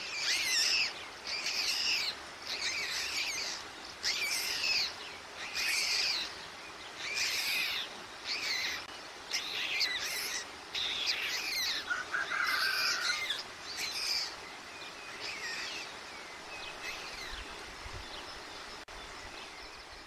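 A small songbird singing short, repeated phrases, roughly one a second, growing fainter after about fifteen seconds.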